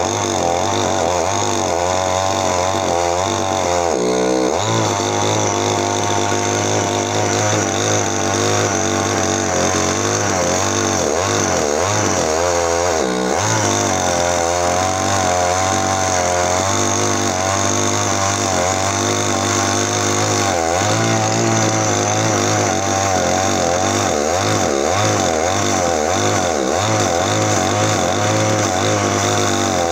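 Two-stroke chainsaw running continuously while cutting into an areca palm stump at ground level, its engine pitch wavering up and down under load, with a couple of brief dips.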